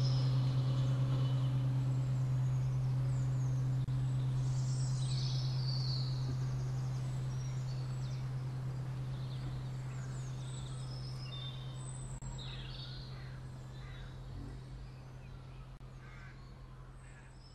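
Birds chirping in short scattered calls over a steady low drone, the whole fading out slowly to near silence: the closing of a soundtrack.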